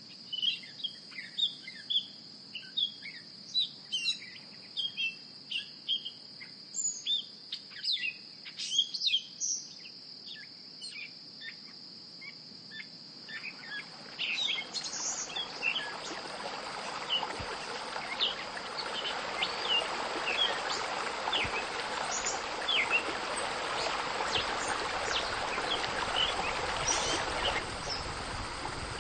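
Birds chirping and calling again and again over a steady high-pitched hum. About halfway through, a steady rushing noise rises beneath them and holds, with the chirps carrying on over it.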